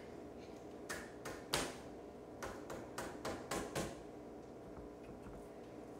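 A string of light taps and clicks, about a dozen, from hands pressing a chicken cutlet into breadcrumbs in a metal tart pan. The taps fall irregularly in the first four seconds, the loudest about a second and a half in, then stop.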